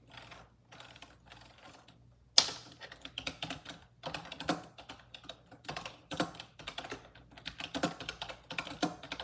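Typing on a computer keyboard: after a couple of seconds of faint soft sounds, a sharp click starts a run of rapid, irregular keystrokes.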